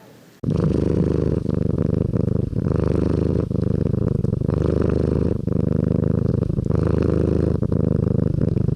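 Domestic cat purring loudly close to the microphone: a steady low rumble with brief dips about once a second as it breathes in and out.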